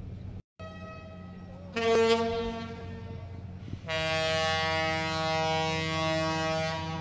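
Fishing vessels' horns sounding over a steady hum: a higher blast about two seconds in, then a louder, lower and longer blast from about four seconds on.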